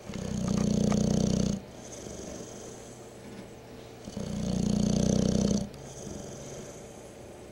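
Bulldog snoring: two long snores about four seconds apart, each lasting about a second and a half, with quieter breathing between them.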